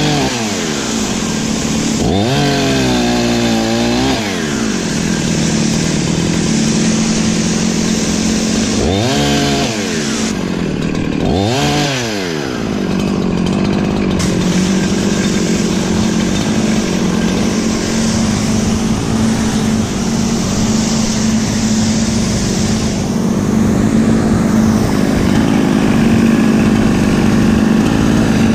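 Perla Barb 84cc two-stroke chainsaw revved up and down four times, then held steady under load, cutting through firewood, for the second half.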